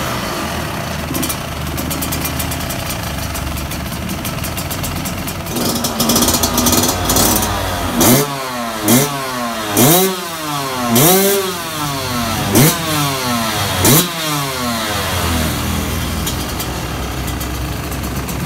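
Yamaha YZ125's 125 cc single-cylinder two-stroke engine idling, then revved in about seven sharp throttle blips from around six seconds in. Each blip rises and falls in pitch, and the engine settles back to idle near the end.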